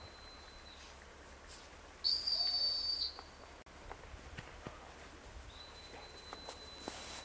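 A dog-training whistle blown once in a single long, steady, shrill blast of about a second, a couple of seconds in.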